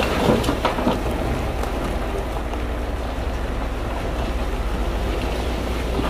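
Heavy earthmoving machinery, a bulldozer or dump truck, running with a steady low diesel rumble under a gritty rattle of stone and soil, with a few knocks in the first second.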